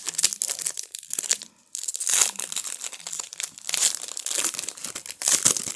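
Plastic foil wrapper of a baseball card pack being crinkled and torn open by hand: a run of irregular crackles, with a brief pause about a second and a half in.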